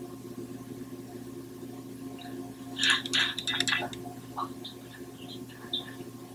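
Quiet room with a steady low electrical hum. About three seconds in, a short burst of breathy, crackly sounds comes from one of the people.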